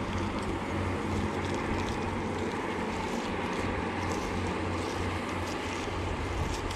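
Steady, low outdoor background rumble with a few faint small clicks.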